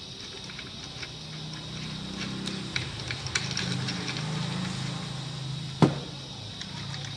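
Light clicks and taps of wooden arm pieces and their bolted joints being handled, then one sharp knock about six seconds in. Under it a low hum swells through the middle and fades.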